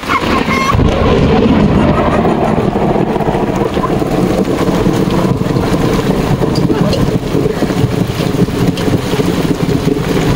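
Wind buffeting the microphone as a loud, uneven rumble, over the steady hiss of rain.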